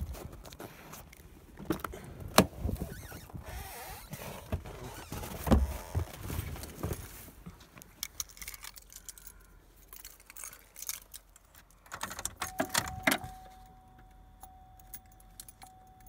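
Car keys jangling, with handling clicks and a few sharp knocks, the loudest about two and a half seconds in and again about five and a half seconds in. This is someone getting into the truck's cab and putting the key in the ignition. A little past twelve seconds in, a steady high tone comes on and holds for about four seconds.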